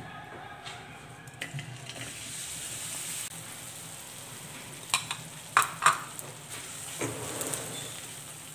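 Jaggery pieces sizzling in hot ghee in a kadhai while a silicone spatula stirs them round the pan, with a steady faint hiss. A few sharp knocks stand out about halfway through.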